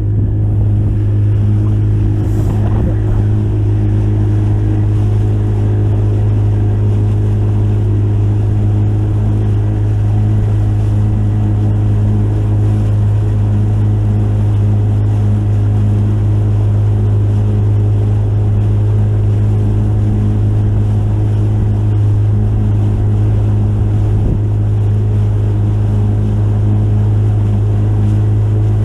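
Fishing boat's motor running at a steady speed, a constant low drone with an even hum that holds unchanged throughout.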